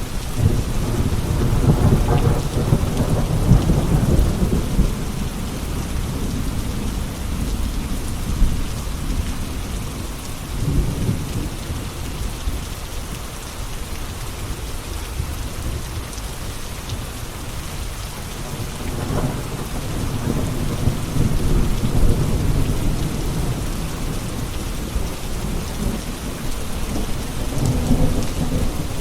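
Steady rain falling, with deep rolls of thunder rumbling in and out: a long roll in the first few seconds, a shorter one around ten seconds in, and another building after about nineteen seconds.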